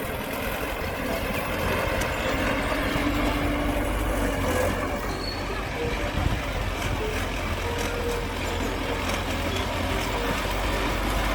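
Heavy earthmoving machinery running steadily: a continuous deep diesel engine drone.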